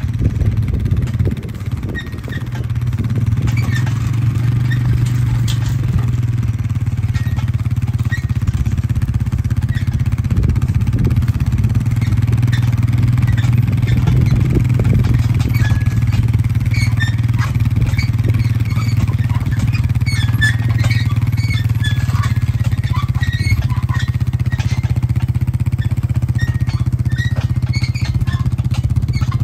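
ATV engine running steadily at low speed while it tows a hay unroller that is unrolling a round bale. Scattered light clicks and squeaks sound over the engine from about halfway through.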